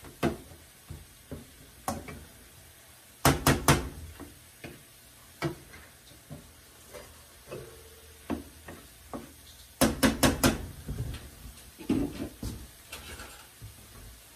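Hamburger chopper knocking and scraping in a stainless-steel frying pan as it breaks up browning ground pork sausage. Scattered single taps, with two quick runs of four or five sharp knocks, about three seconds in and about ten seconds in, the loudest.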